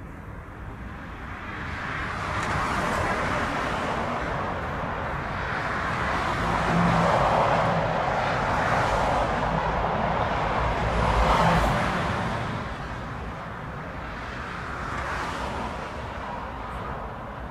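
Jet engines of a twin-engine widebody airliner taxiing: a steady rushing whoosh over a low rumble that swells over the first couple of seconds, is loudest in the middle, and fades toward the end.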